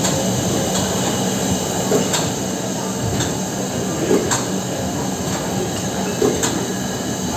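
Prussian T 18 steam tank locomotive standing at a station platform: a steady hiss and low hum, broken by a few sharp clanks.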